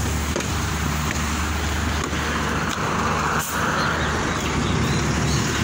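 Bus engine running steadily close by, a low even hum, with a rush of noise swelling about two to four seconds in.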